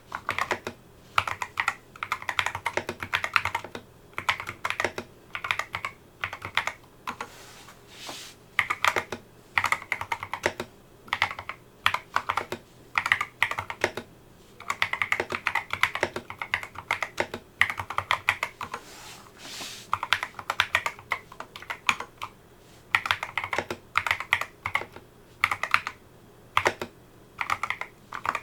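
Typing on a Geeky GK61 hot-swap mechanical keyboard fitted with replacement switches and keycaps: quick runs of key clacks in bursts, with short pauses between them.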